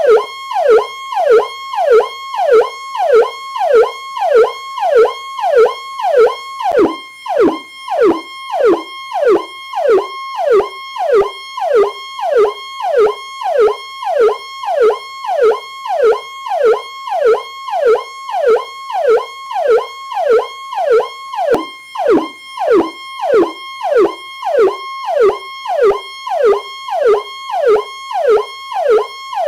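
Police car siren sounding its Powercall tone. The pattern repeats rapidly and evenly, about one and a half cycles a second: a brief held high note, then a fast falling sweep.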